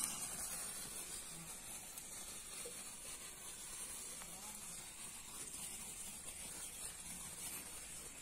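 Hand-held green sparkler stick burning with a steady sizzling hiss, a little louder just as it catches and then settling.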